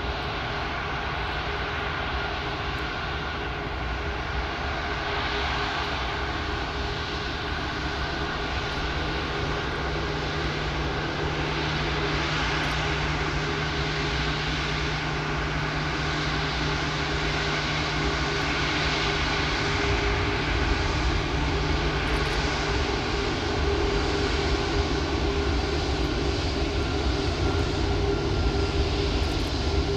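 Airbus A340-600's four Rolls-Royce Trent 500 turbofans at taxi power: a steady jet whine over a low rumble, growing slowly louder as the airliner rolls past.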